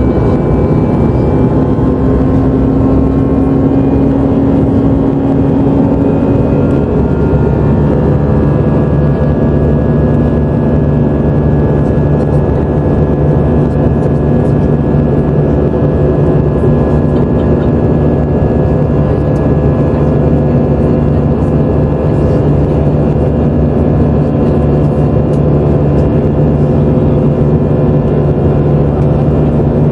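Cabin noise of a jet airliner in cruise flight: a loud, steady rush of engine and air noise with several steady hums, some of which shift slightly in pitch during the first several seconds.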